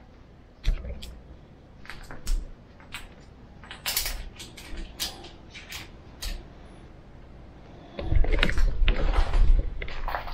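Handling noise from a phone camera: scattered clicks and knocks, then about eight seconds in a couple of seconds of loud rubbing and thumping as the phone is adjusted and its microphone is brushed.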